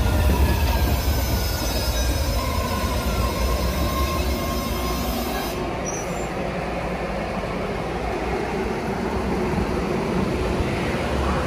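MBTA Red Line 1800-series subway train braking along the platform, its motors whining down in pitch with wheel squeal over a steady rumble. The high squeal and hiss cut off about halfway through, leaving a lower rumble as the train slows.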